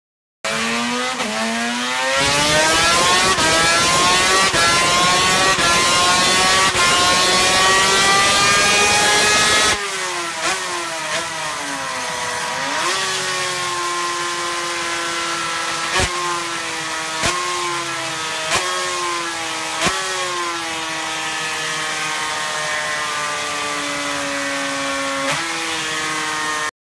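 Suter MMX 500's 576 cc two-stroke V4 engine running hard on a dyno, its revs climbing steadily for about ten seconds. It then changes abruptly to running with the revs dropping and picking up again several times, with four sharp cracks.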